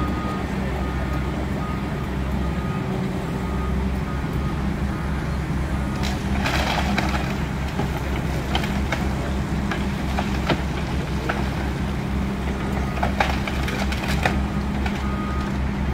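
Tracked excavator's diesel engine running steadily while it tears into a burned building. A noisy burst of breaking debris comes about six or seven seconds in, and scattered cracks and knocks follow later.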